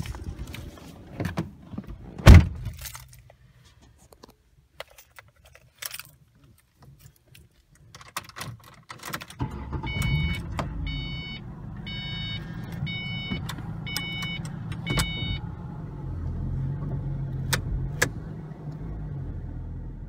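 A car door slams shut amid keys and handling noise, then about nine seconds in the Ford Mustang's engine starts and idles with a steady low rumble. A warning chime dings repeatedly for about five seconds after it starts.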